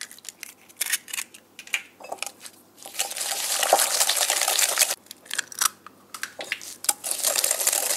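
Metal balloon whisk beating eggs into creamed butter and sugar in a glass bowl: the wires rattle fast against the glass in two spells, about three seconds in and again near the end, with scattered clinks and taps in between.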